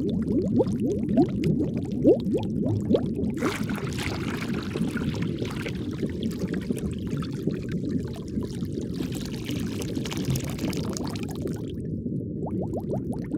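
Underwater bubbling: a dense stream of small bubbles, each a short rising blip, with a fizzing hiss joining in a few seconds in and cutting off near the end.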